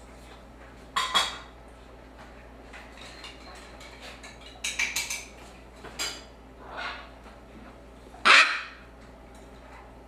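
Young Shamrock macaw chick giving a handful of short, harsh calls while being hand-fed, the loudest near the end.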